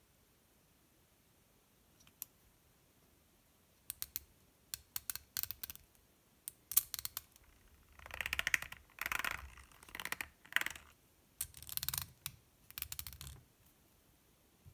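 Metal front axle of a small RC crawler turned by hand: a few scattered clicks from handling the parts, then from about eight seconds in, around six short bursts of fast rattly clicking as the wheel is spun and the gears inside the axle turn.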